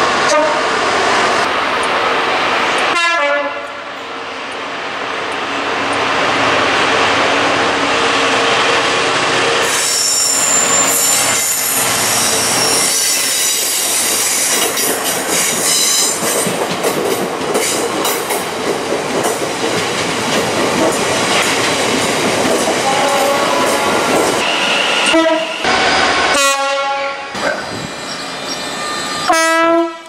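A diesel freight locomotive's horn sounds at the start. Its long train of bogie tank wagons then rolls past, wheels clattering over the rail joints with bouts of high-pitched wheel squeal. Near the end a second locomotive horn gives short blasts; this one is from a GB Railfreight Class 73 electro-diesel.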